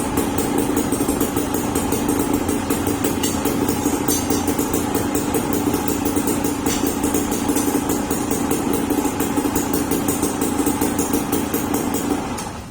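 An engine running steadily, with a fast, even ticking over its hum, cutting off shortly before the end.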